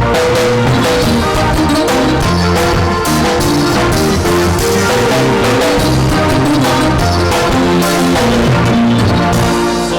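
Worship band playing an instrumental passage of a Sudanese hymn: sustained pitched instruments over a steady drum beat.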